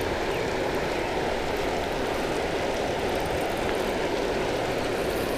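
Steady rushing of water pouring through a spillway.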